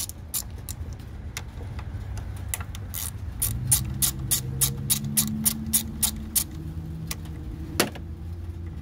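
Small socket ratchet clicking in quick, even strokes, about three to four clicks a second, as it backs out the 8 mm bolts holding the idle air control valve on the throttle body. A single louder click comes near the end, with a low steady hum underneath.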